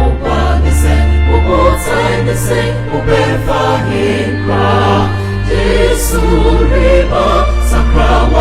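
Gospel music with a choir singing over a deep, sustained bass line.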